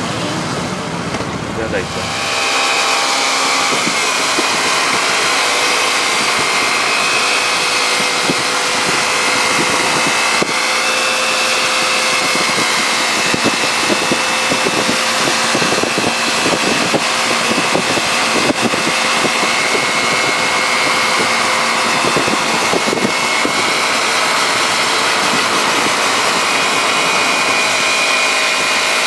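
Steady vehicle noise: an engine running with road and wind noise at an even speed, the sound changing about two seconds in and then holding constant.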